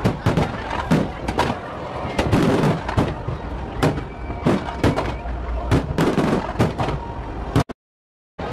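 Fireworks display: aerial shells bursting in irregular, overlapping bangs, several a second, over a continuous noisy din. Near the end the sound cuts out abruptly to silence for under a second.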